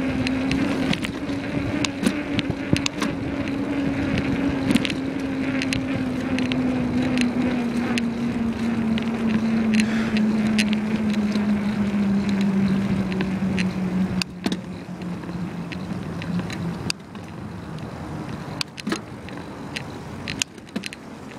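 A bicycle rolling along a street: a steady hum that sinks slowly in pitch and stops about 17 seconds in, with frequent sharp rattles and clicks from the bike over the road surface.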